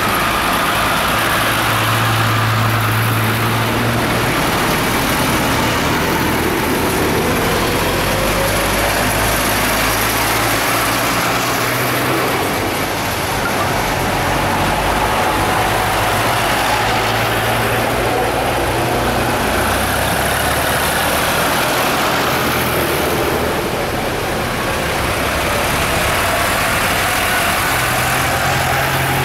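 Diesel engines of a procession of modern tractors, among them a John Deere and a New Holland, driving past one after another. The engine notes swell and bend in pitch as each tractor nears and passes, with one passing close near the end.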